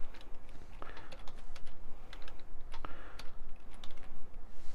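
Typing on a computer keyboard: an irregular run of quick key clicks.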